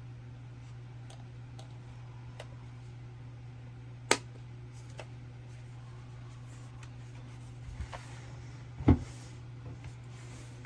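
Scattered light clicks and taps over a steady low hum, with two sharp knocks about four and nine seconds in, the second the loudest.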